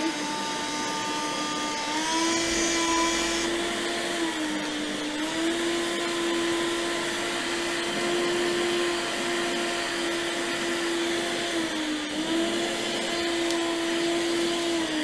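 Vorwerk Folletto vacuum cleaner running steadily while its narrow nozzle sucks dust off both sides of the motor-protection filter grid. The motor's pitch steps up and down a few times as the nozzle works over the filter.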